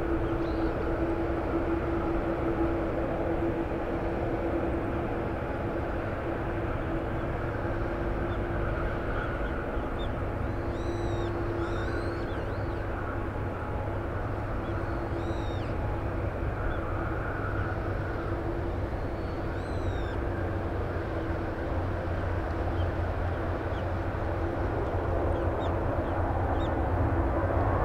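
Steady distant jet engine rumble across the airfield with a steady hum, while small birds chirp a few times. Near the end an Airbus A320's jet engines at takeoff thrust grow louder as it lifts off.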